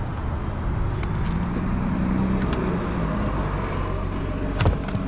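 Steady low hum with a few light clicks of hand tools, and one sharp metal clank near the end as a ratchet and extension are handled.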